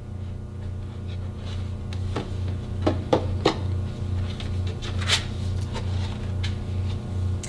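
A few short clicks and rustles of a picture book being handled as its page is turned, over a steady low electrical hum.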